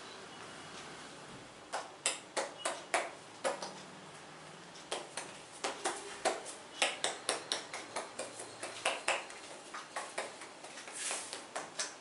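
A quick, irregular run of sharp slaps and pops from a masseur's hands working on the client, starting about two seconds in and going on, two to four strokes a second, until just before the end.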